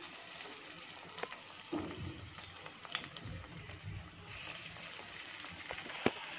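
Hot oil sizzling steadily around onion fritter batter deep-frying in a wok, with scattered sharp pops and crackles; the sizzle grows fuller about four seconds in.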